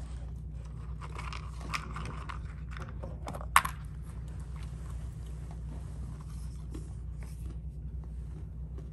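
A child chewing a crunchy snack, with small crackling clicks throughout and one sharper click about three and a half seconds in, over a steady low hum.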